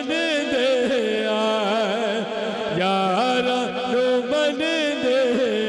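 A man sings a Punjabi naat into a microphone, a long melismatic line that bends and wavers in pitch, over a steady low held note.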